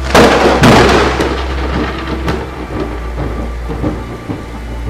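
Thunder from a lightning strike: a sharp, loud crack, a second crack about half a second later, then crackling rumble that fades away over the next few seconds.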